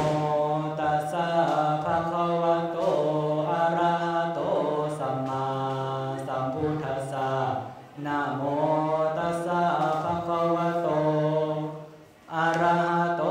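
A Buddhist monk chanting into a microphone in one male voice, holding long, slowly gliding tones, with short breaks about eight seconds in and again near the end.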